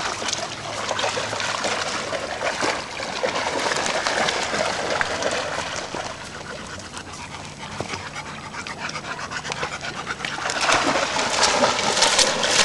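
A dog panting close by, louder toward the end, with crackling footsteps through dry leaves and twigs.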